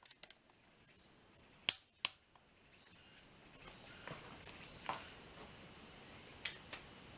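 Steady high-pitched insect chorus, fading in and growing louder, with two sharp clicks about two seconds in.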